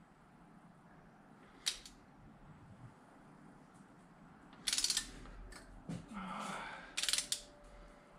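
Long ratchet wrench on the Datsun L16's cylinder head bolts, its pawl clicking in two quick runs about five and seven seconds in as the handle is swung back while the head bolts are loosened, after a single sharp click near the two-second mark.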